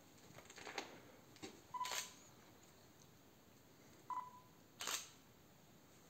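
Digital camera's short focus-confirmation beep followed by the shutter click, twice, about three seconds apart. A few faint footsteps come before the first beep.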